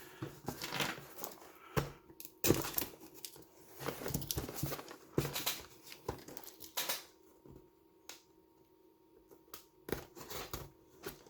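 A sealed shipping package being cut and torn open: irregular tearing, crinkling and rustling of the packaging, busiest in the first seven seconds and sparser toward the end.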